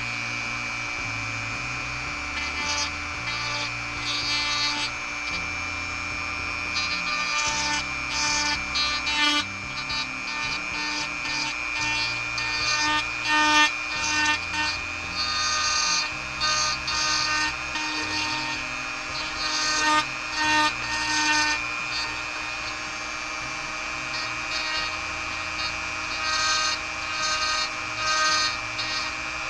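Dremel rotary tool running at reduced speed with a steady high whine. Its miniature high-speed steel end mill cuts plastic in repeated short grinding bursts.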